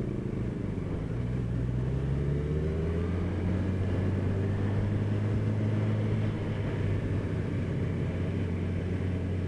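Sport motorcycle engine heard from the rider's position, its pitch rising over the first few seconds as the bike accelerates, then holding a steady drone at cruising speed.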